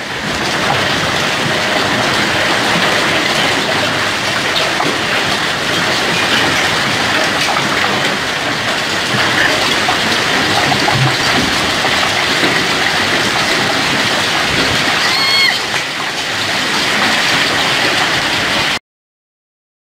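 Hailstones mixed with heavy rain pelting a grass lawn and paved ground in a dense, steady clatter of small impacts. The sound cuts off suddenly near the end.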